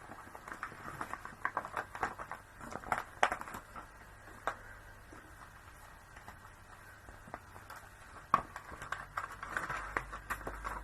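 Light, irregular clicks and rustles of a small plastic pack of craft gems being handled and opened on a craft desk. The clicks are quieter in the middle and pick up again near the end.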